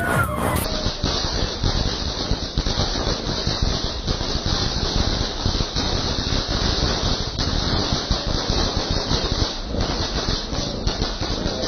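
Firecrackers going off close by in a continuous, rapid crackle of small bangs with a hissing rattle, loud throughout.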